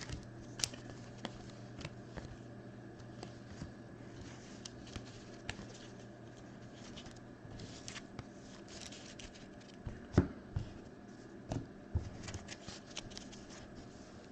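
Trading cards being sorted by hand on a table: scattered light clicks, taps and slides of card on card, with a sharper knock about ten seconds in, over a steady low hum.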